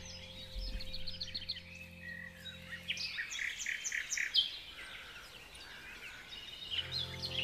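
Small birds chirping and twittering in quick repeated notes over a soft, sustained music drone. The drone drops out about three seconds in, leaving the birdsong alone, and returns near the end.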